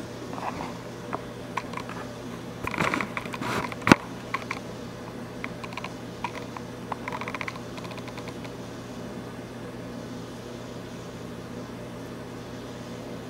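Steady hiss and hum of a gas burner's flame heating a glass neon tube, with a scatter of light clicks and clinks in the first few seconds, the sharpest about four seconds in.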